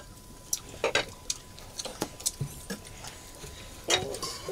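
Scattered light clicks and clinks of a metal ladle in a cooking pot and of metal plates, at an irregular pace.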